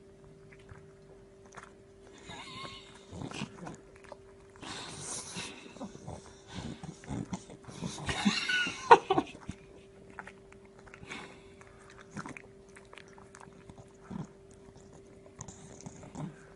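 A dog chewing and biting food in irregular bouts, loudest a little past halfway, over a faint steady hum.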